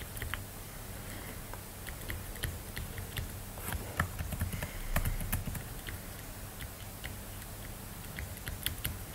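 Stylus pen tapping and scratching on a drawing tablet during handwriting: a scatter of light, irregular clicks over a low steady hum.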